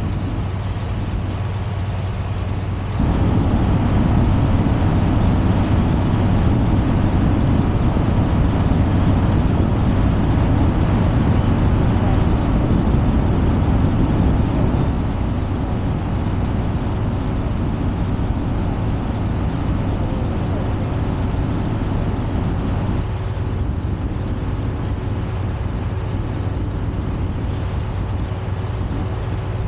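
Motor boat underway: its engine runs steadily with a low hum, mixed with the rush of wind and water. The rush grows louder about three seconds in and eases back about fifteen seconds in.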